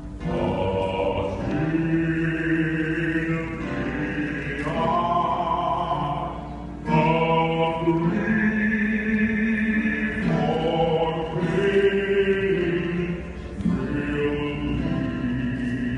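Choir singing a hymn in sustained chords, with pipe organ accompaniment. The singing moves in long phrases, with fresh phrases starting about 7 and 13 seconds in.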